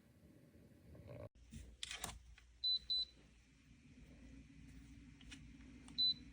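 Three short, high electronic beeps, two in quick succession about two and a half seconds in and a third near the end, from the Dreo ultrasonic humidifier's control panel as its buttons are pressed. Before them comes a brief rustle of handling, and under them a faint low steady hum.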